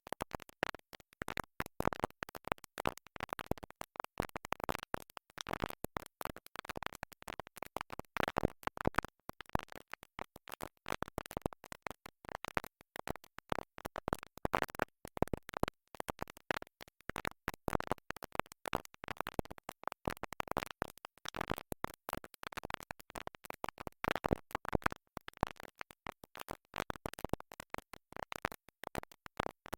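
A stuck record skipping: a scrap of music stutters over and over in rapid, choppy fragments with scratchy clicks between them.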